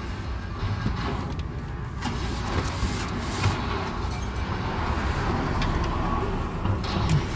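Hand tools working an oxygen sensor loose on a van's exhaust: a few scattered metallic clicks and knocks over a steady low rumble.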